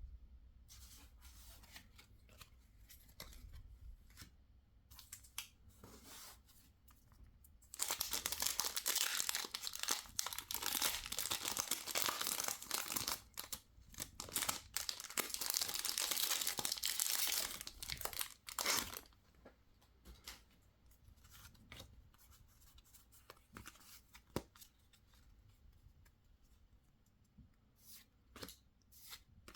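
Crinkly packaging being torn open by hand, most likely a foil booster-pack wrapper or the box's plastic wrap, in one loud stretch of about eleven seconds. Light clicks and taps of handling come before and after.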